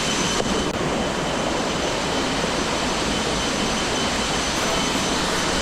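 Waterfall falling: a steady, loud rush of water.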